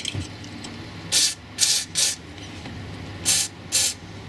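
WD-40 aerosol can sprayed in five short hisses, three in quick succession then two more, onto a rear suspension arm's rubber silent-block bushing to test whether the bushing is what creaks.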